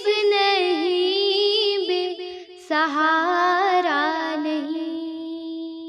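A young girl singing a naat, an Urdu devotional hymn, in long held notes with a wavering pitch. There is a short break about two and a half seconds in, then a last held phrase that fades out near the end.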